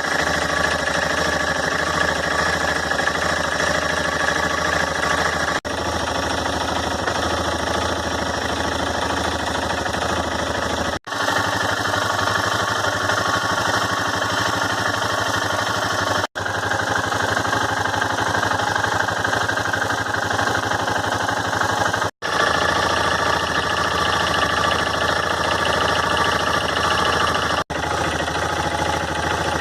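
BMW F650GS motorcycle engine running steadily with no revving, broken off for a split second about five times by cuts in the recording.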